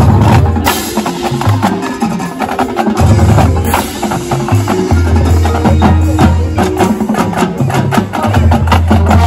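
High school marching band playing live, with a busy run of percussion strikes over long held low bass notes that change every second or two.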